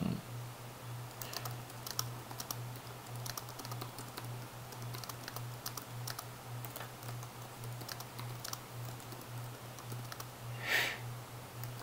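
Typing on a computer keyboard: irregular key clicks over a steady low hum, with a brief louder hiss about a second before the end.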